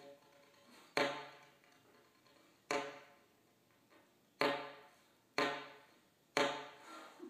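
Solo alto saxophone playing short, sharply attacked notes with a percussive pop, typical of slap tonguing, each ringing briefly and fading. Six such accents come at uneven spacing, about a second apart, with near-quiet gaps between.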